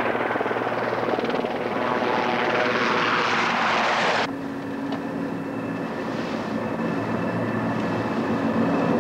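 Sea King helicopter hovering close by, its rotor blades chopping over the turbine noise and growing louder about two seconds in. A little past the middle it cuts off abruptly and gives way to a steadier, lower engine hum with a few steady tones.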